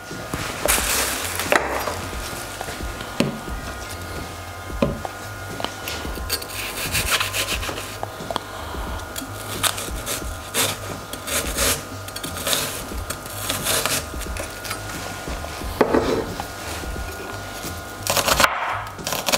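Kitchen knife slicing and dicing a shallot on a chopping board: a run of irregular sawing cuts and light taps of the blade on the board.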